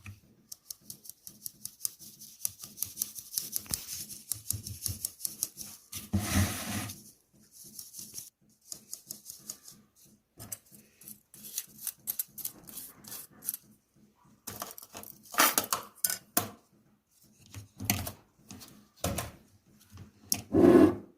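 Hand sieve being shaken and tapped to sift ground spices: a fast run of ticks and rattles for the first several seconds, then scattered taps and a few louder knocks.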